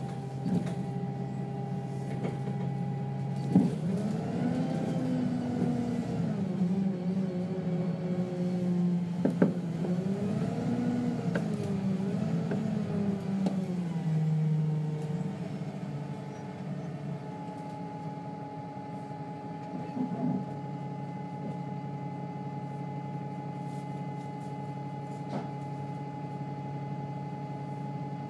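Alexander Dennis Enviro 300 single-deck bus with a Voith automatic gearbox: its diesel engine's revs rise and fall twice, with two sharp knocks, then settle to a steady low hum with a high steady whine over it.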